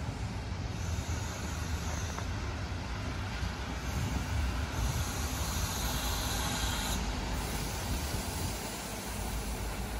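ALn 668 diesel railcar drawing in along the station track, its diesel engines running steadily. A high hiss lies over it for several seconds in the middle.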